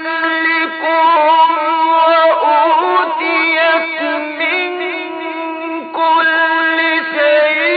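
Solo male Quran recitation in melodic tajweed style: one voice holding long notes with wavering, ornamented turns, broken by a few short breaths.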